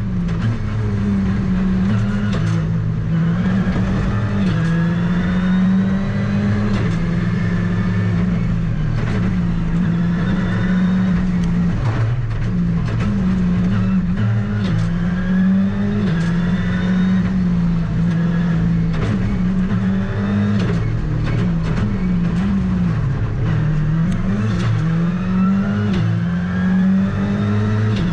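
Ford Fiesta R5 rally car's turbocharged 1.6-litre four-cylinder, heard from inside the cabin on a rally stage. The engine revs up and drops back with quick gear changes again and again, with sharp clicks and cracks scattered through.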